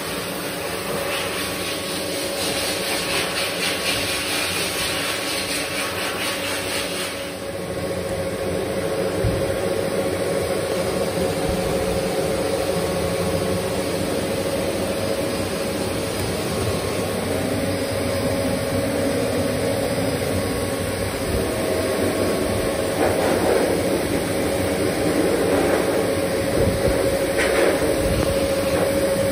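Water spraying from a handheld shower head onto a cat's wet fur for about the first seven seconds, then stopping. A steady mechanical hum runs underneath throughout.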